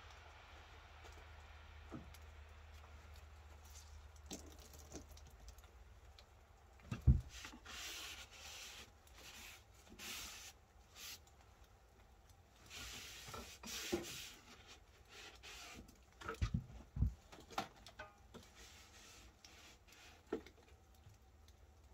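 Hands working on the battery wiring of a wooden-decked miniature electric locomotive: scattered knocks and rustling. The loudest knock comes about seven seconds in, with a cluster of knocks around sixteen to seventeen seconds.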